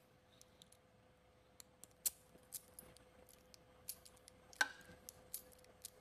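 Faint scattered metal clicks of a freshly cut Honda HON66 key being handled and slid into a Honda lock cylinder, with a faint steady hum beneath.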